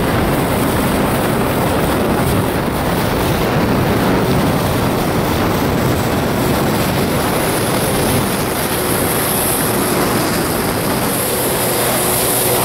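Loud, steady rush of wind and water noise from a moving watercraft, with a faint steady engine hum coming in about two-thirds of the way through.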